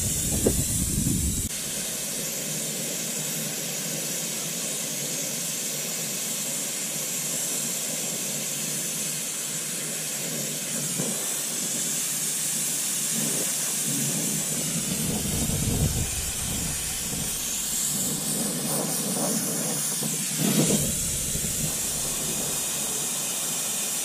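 Brazing torch with a rosebud heating tip burning with a steady hiss as it heats copper refrigerant line joints. A few low rumbles come and go partway through and again a little before the end.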